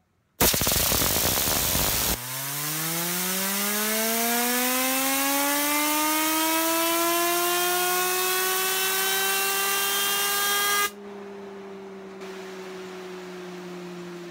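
Compressed air from an air hose blasting a stainless steel bar fidget spinner clamped in a test stand to spin it up: first a hiss, then a whine with overtones that rises steadily in pitch as the spinner gains speed. About eleven seconds in the air cuts off, and the free-spinning spinner keeps humming, slowly falling in pitch.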